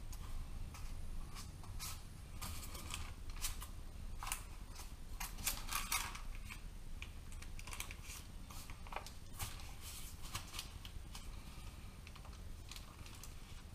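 Baking paper crinkling and rustling in irregular crisp crackles as dough is rolled up in it, thickest about halfway through, over a low steady hum.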